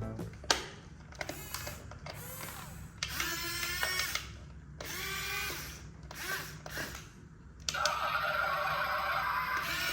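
Small electric motors of a remote-control model excavator whining in short runs that rise and fall in pitch, with clicks between them, then a steady buzzing run near the end.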